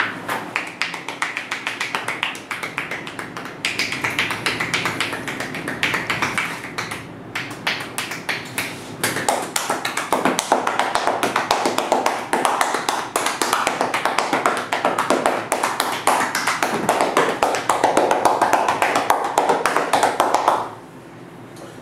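A masseuse's hands rapidly patting and slapping a client's legs in percussive massage, a fast run of taps that stops abruptly near the end.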